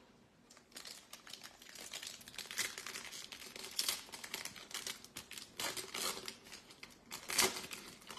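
Foil trading-card pack wrapper crinkling in the hands and being torn open: a dense, irregular crackle with louder crackles about four seconds in and near the end.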